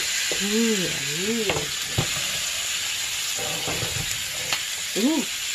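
T-bone steak sizzling on a hot ridged grill pan, a steady spitting hiss, with a few sharp clicks of the metal tongs turning and handling the meat.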